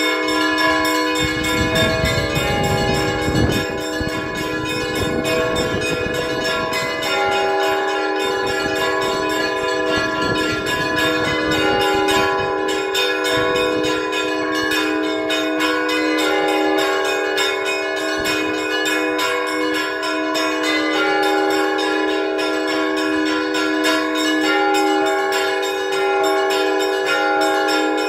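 Russian Orthodox church bells rung by hand in the bell tower: a fast, unbroken run of small-bell strikes over the long ringing tones of larger bells.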